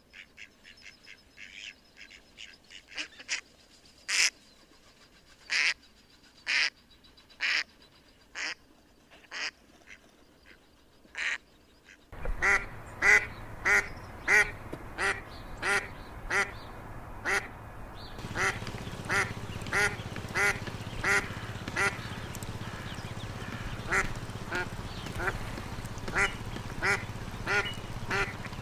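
Ducks quacking: short, scattered calls at first, then, after a sudden change about twelve seconds in, louder quacks repeated at about two a second over a steady background.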